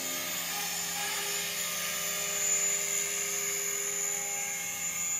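Align T-Rex 500 electric radio-controlled helicopter in flight: a steady whine from its motor and rotors, with a high-pitched tone running through it.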